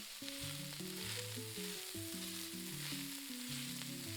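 Ground beef sizzling as it fries in a pot with softened vegetables and pancetta, a steady hiss, while it starts to brown. Soft background music of low held notes plays underneath.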